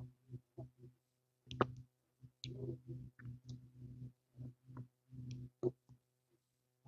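Close-up handling noises: a run of small clicks and short scrapes of objects being picked up and worked by hand, the sharpest clicks about a second and a half in and again near the end.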